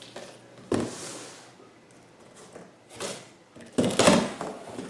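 A knife slitting the packing tape on a cardboard box, with cardboard scraping and rustling as the box is cut open: a sharp rip about three-quarters of a second in and a longer, louder scrape near the end.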